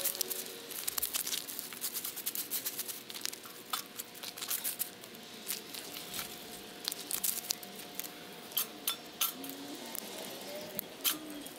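Small dry sticks being gathered and handled: scattered light snaps and clicks, with a few sharper ones in the second half.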